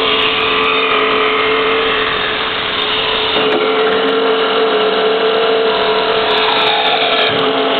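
Genini MINIAUTOMAT automatic woodturning lathe running on a test cut, its cutters shaping a spinning wooden blank: a steady machine tone over the noise of the cutting.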